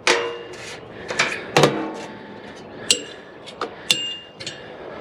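Sharp metal clanks and taps on a piece of curbside scrap, five or so strikes, a couple ringing briefly at a high pitch: a quick test of whether the item is all metal.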